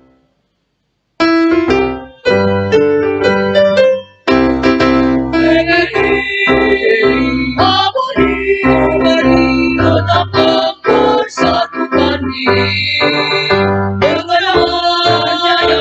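A choir singing with keyboard accompaniment, the music starting about a second in after a brief silence.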